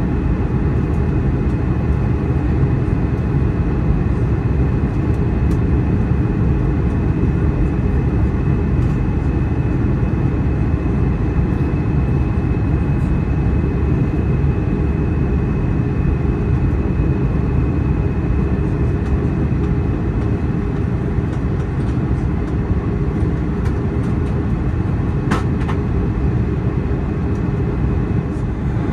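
Airbus A320 cabin noise: a steady, loud low rumble of the engines and airflow heard from inside the cabin, with a faint steady whine above it. A single small click about 25 seconds in.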